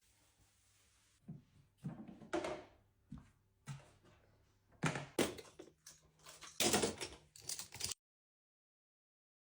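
A series of irregular knocks and thuds, busiest in the middle of the stretch, then the sound cuts out abruptly about eight seconds in.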